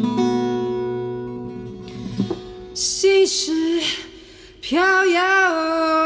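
A woman singing with acoustic guitar accompaniment. A guitar chord rings out and fades at first, then she sings a short phrase, and near the end she holds one long steady note.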